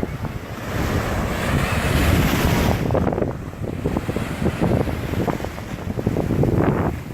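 Ocean surf breaking and washing in, with a swell of hissing wash about a second in that falls away near the three-second mark, over the low rumble of wind buffeting the microphone.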